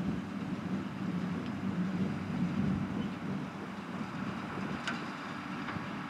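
New Holland tractor running steadily while pulling a New Holland small square baler through a hay windrow. A single sharp clack comes about five seconds in.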